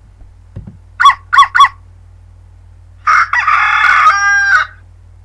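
Rooster: three short clucks about a second in, then one long cock-a-doodle-doo crow.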